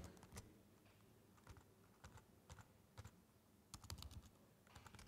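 Faint, irregular keystrokes on a laptop keyboard as a command is typed into a terminal, with a quicker run of keys near the end.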